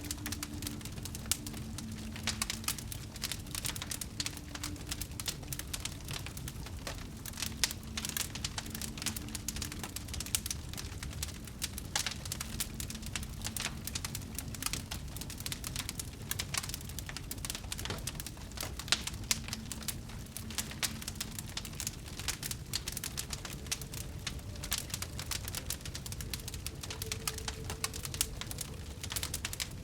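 Wood fire crackling, with irregular sharp pops over a low steady rumble. A faint low hum comes and goes.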